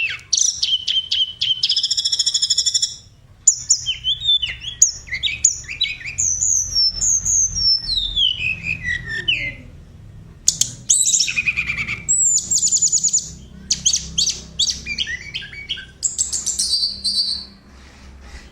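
A tledekan, a Cyornis blue flycatcher, singing a varied run of high whistled phrases: quick trills, rapid chirps and falling slurs, with short pauses between phrases.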